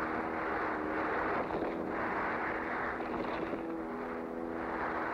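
Two-stroke Mercury outboard motor running at high speed with a steady drone, over the rushing hiss of water and spray.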